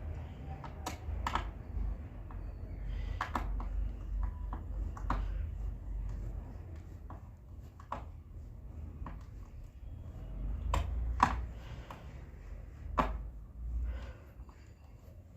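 Screws being unscrewed from a wooden speaker box: irregular small clicks and knocks from the screwdriver and from handling the box, with the loudest knocks near the end.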